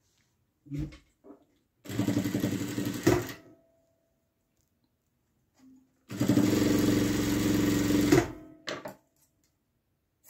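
JUITA industrial sewing machine stitching in two runs, the first a little over a second long and the second about two seconds, each a steady motor and needle hum that stops abruptly. There are a few brief knocks between and after the runs as the fabric is handled.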